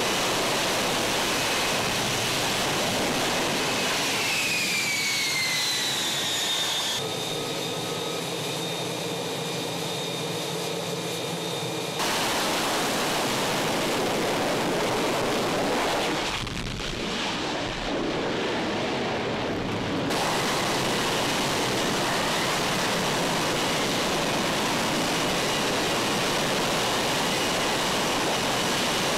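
F-35B's F135 jet engine running at hover power for a vertical landing, a loud, dense rush of jet noise. A high whine falls in pitch a few seconds in, and the sound changes abruptly several times.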